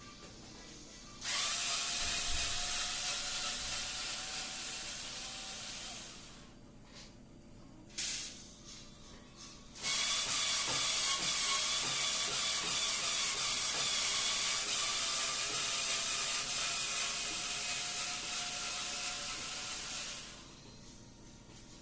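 Cordless electric screwdriver running to loosen a wall socket's screws: one run of about five seconds, a short burst about 8 seconds in, then a run of about ten seconds.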